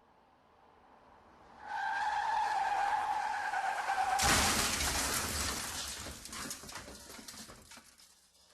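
Car crash sound effect: a tyre screech held for about two and a half seconds, then a loud crash with clattering, shattering debris that dies away over the next few seconds.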